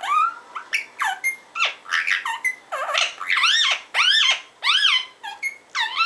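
Indian ringneck parakeet chattering its talk-like gibberish: a quick string of short, squeaky chirps that swoop up and back down in pitch, several to the second.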